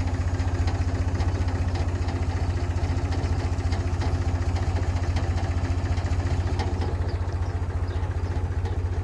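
An engine running steadily at an even speed, with a fast low throb.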